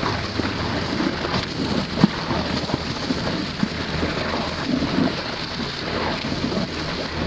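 Underwater sound picked up by a camera held below the surface: a steady rushing, crackling water noise with scattered short sharp clicks.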